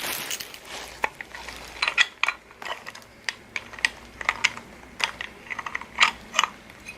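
Parts of a Momo steering-wheel quick release hub kit clicking and clinking, metal on metal, as the pieces are handled and fitted together. The clicks come irregularly, a dozen or more, some sharper with a short ring.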